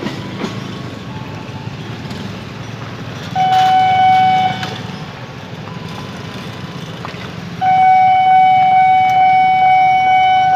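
Level crossing warning alarm giving a steady, loud electronic tone: a short sounding about three and a half seconds in, then on again near the end and held. Under it runs the low rumble of a KRL JR 203 electric commuter train passing.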